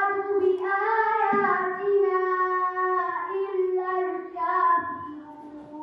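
A girl's voice chanting a Qur'anic recitation in Arabic into a microphone, in long held notes with ornamented turns, stepping down in pitch and trailing off quieter near the end.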